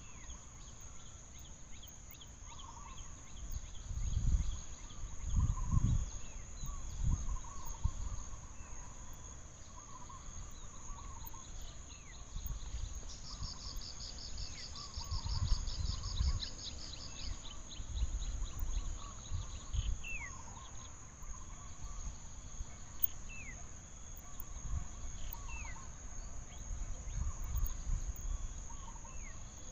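Forest ambience: a steady high insect drone, with a fast pulsing trill for a few seconds midway and short falling bird chirps every few seconds in the second half. Low rumbles and thumps come and go underneath.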